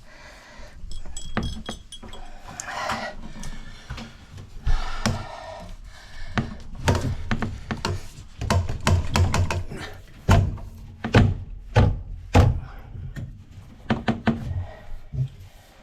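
Repeated heavy thunks and sharp knocks as a part is forced into place by hand during a water heater installation, with a few short grunts of effort between them. The knocks come thickest in the second half.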